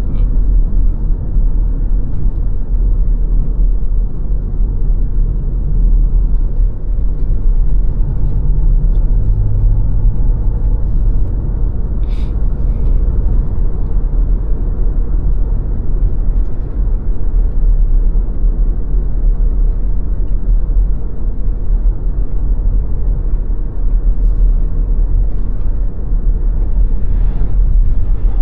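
Car driving at a steady pace, with a continuous low rumble of tyre and wind noise and a faint engine hum under it. There is a brief faint click about twelve seconds in.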